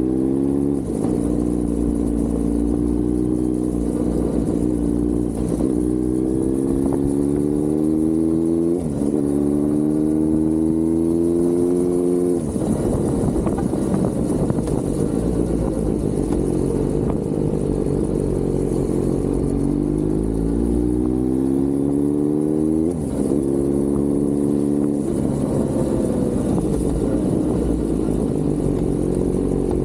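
Kawasaki Z900 inline-four motorcycle engine under way, accelerating through the gears: the revs climb and drop sharply at each upshift, several times. In the middle there is a rougher stretch off the throttle, and then another pull and shift.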